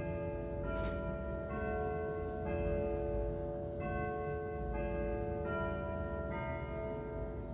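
Junghans pendulum floor clock chiming a melody: a new ringing note about every second, each note sustaining under the next.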